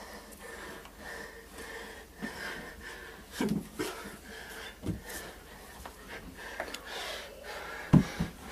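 Heavy breathing and panting of two grapplers wrestling on the floor, with several dull thumps of bodies and limbs hitting the floor, the loudest near the end.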